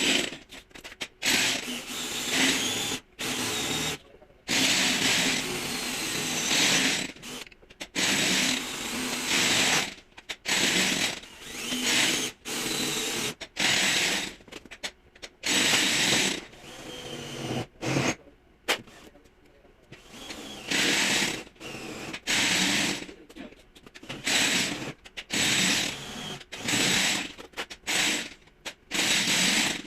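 A power tool run in repeated short bursts, each from about half a second to two seconds long, with brief pauses between.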